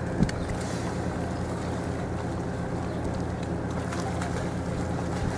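A steady low engine drone with wind noise on the microphone, and one sharp knock shortly after the start.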